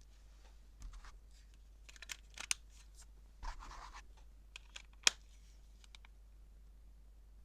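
Handling noise from a Siemens M55 mobile phone: scattered small clicks and a brief scrape, with the loudest, sharpest click about five seconds in.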